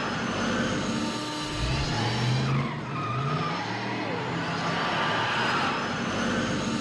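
DeLorean sound effect: a steady rushing, car-like noise over a low hum, with tones that glide up and down and a low tone rising about two and a half seconds in.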